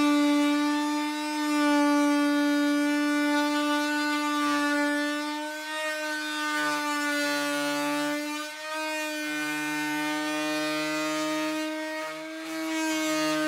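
Corded oscillating multi-tool cutting through the truck's plastic front bumper cover along a taped line: a steady, high buzzing whine that wavers a little in pitch as the blade bites, dipping briefly twice in the second half.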